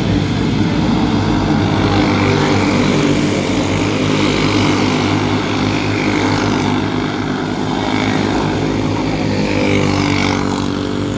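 Small racing kart engines running hard at high revs, several at once, in a steady drone that never lets up.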